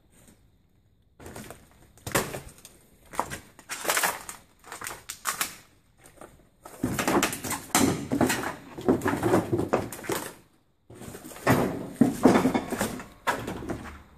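Footsteps crunching and scraping over a floor littered with debris and fallen ceiling tiles, in irregular bursts with sharp cracks, stopping briefly a little past halfway.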